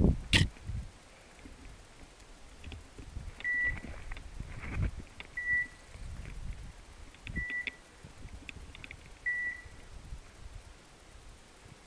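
Dog's beeper collar giving four short, even, high beeps about two seconds apart, over the rustle and thumps of someone pushing on foot through brush. A sharp crack comes near the start.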